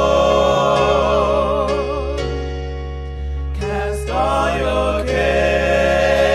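Gospel music: singing voices hold long notes with a wide vibrato over sustained chords. A little past two seconds in, the voices drop out for about a second and a half while the chord rings on, then the singing comes back.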